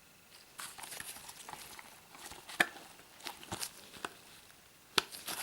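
Hands fiddling with a plastic case or package, trying to open it: scattered clicks and rustling, with two sharper clicks about two and a half seconds in and near the end. The case does not open.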